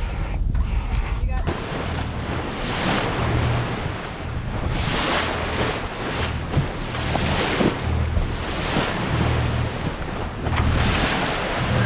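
Waves rushing past a sailboat, with wind buffeting the microphone in surging gusts.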